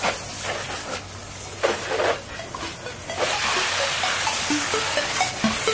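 Garden hose spraying water onto a dog and into a plastic kiddie pool: a splashing hiss that becomes steadier and fuller about three seconds in.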